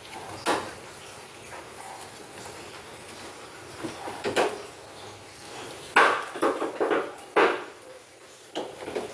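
Irregular knocks and clatters, a handful of separate sharp hits, the loudest about six seconds in and again about a second and a half later.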